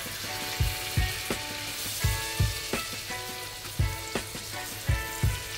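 Seasoned chicken thighs sizzling steadily in hot butter and oil in a frying pan. Background music with a steady thumping beat plays over it.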